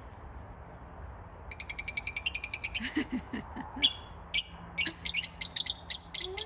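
Budgerigars chirping: a fast run of short high chirps about a second and a half in, then sharp scattered chirps.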